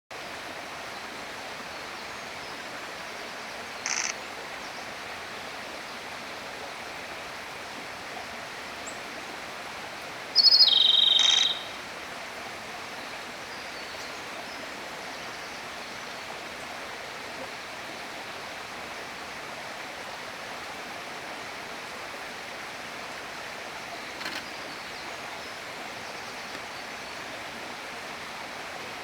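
A Japanese robin sings once, about ten seconds in: a high opening note followed by a fast rattling trill. A short high chirp comes near four seconds, over a steady rushing background.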